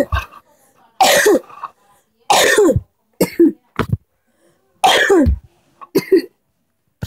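A boy coughing about six times in short separate bouts, each cough trailing off in a falling voiced tone.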